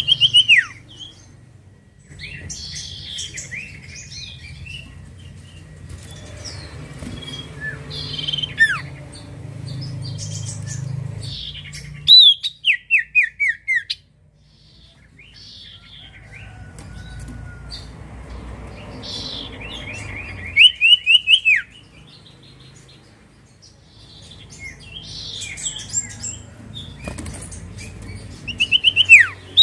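Common iora singing: loud bursts of four to six quick notes, each sliding down in pitch, repeated about every eight seconds, with softer scattered chirps in between.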